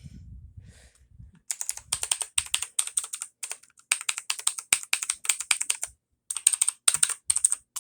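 Rii K61C mechanical keyboard with blue switches being typed on: quick runs of sharp key clicks, starting about a second and a half in, with a couple of brief pauses.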